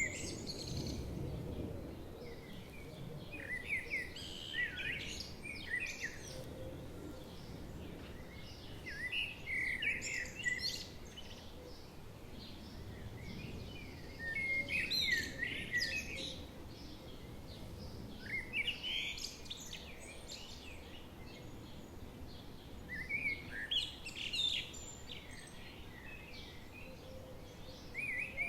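Songbirds singing in short warbling phrases every four to five seconds, over a steady low rush from a babbling forest stream.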